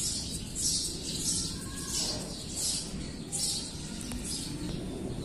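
Birds chirping over and over, short high chirps about every half second, over a steady low background rumble.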